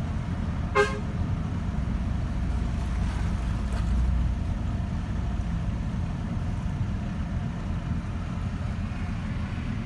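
Vehicle driving through floodwater: a steady low rumble of engine and tyres. A short, sharp pitched blip comes about a second in.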